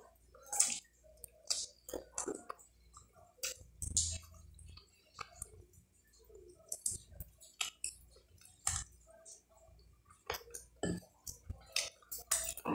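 Mouth sounds of a person gnawing meat off a pork rib bone held in her fingers: irregular wet smacks, clicks and chewing.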